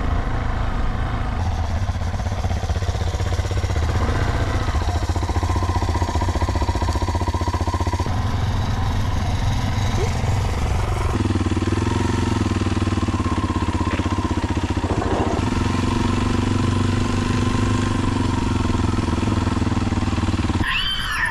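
Kawasaki KLX230SM's single-cylinder four-stroke engine, fitted with a Delta Barrel4-S exhaust, running steadily while riding along a gravel track. Its note shifts about eleven seconds in and changes abruptly near the end.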